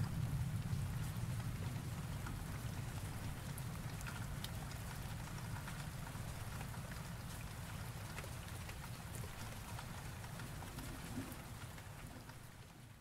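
Steady rain with scattered drop ticks, and a low thunder rumble dying away over the first few seconds; the rain fades out near the end.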